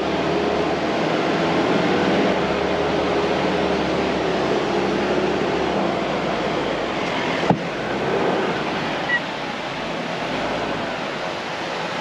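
Four-wheel drive's engine running as it drives through soft beach sand, under a steady rushing noise of wind and surf. A single sharp click comes about seven and a half seconds in.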